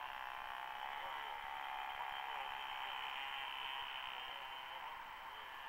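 Engine of a radio-controlled model airplane whining in flight, a steady high-pitched drone that swells a little in the middle and eases near the end as the plane passes.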